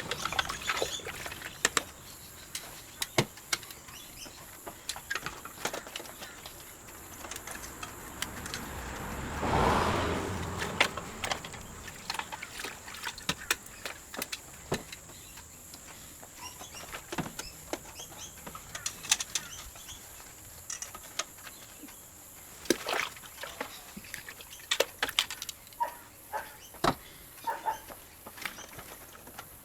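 Plastic safety glasses being handled while they are washed: scattered light clicks and knocks, with a longer swell of noise about ten seconds in.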